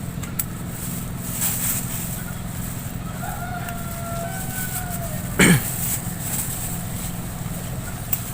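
A rooster crowing once about three seconds in, a drawn-out call that holds and then falls away. A couple of seconds later comes a sharp snap or knock, the loudest sound, over a steady low hum.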